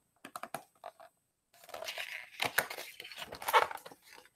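Pages of a hardcover picture book being handled and turned, paper rustling and crinkling: a few light clicks in the first second, then a denser rustle from about a second and a half in.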